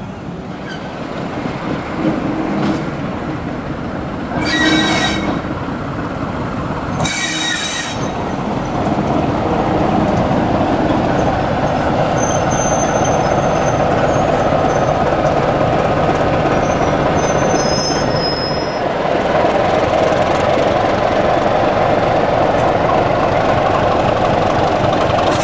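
Coaches rolling out past the platform, with two short horn blasts about four and a half and seven seconds in. From about nine seconds a BR Class 27 diesel locomotive's Sulzer engine runs steadily as it stands at the platform.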